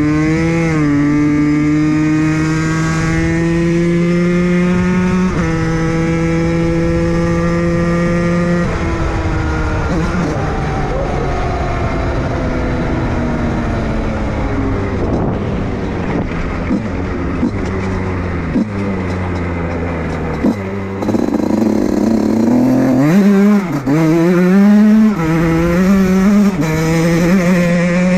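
Fantic TPR 86 motorcycle engine running under way. The engine note holds steady for the first nine seconds, stepping up slightly about five seconds in. It then drops away to a low run, and the revs rise and fall repeatedly in the last six seconds.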